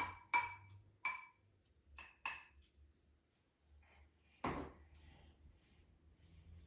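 Stainless steel pet food bowl clinking as it is knocked and handled: about five short ringing clinks in the first two and a half seconds, then a duller knock about four and a half seconds in.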